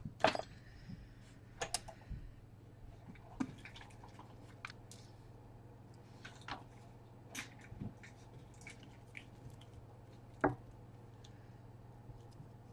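Scattered small clicks and taps from handling on a repair bench, irregular and a few seconds apart, over a steady low hum.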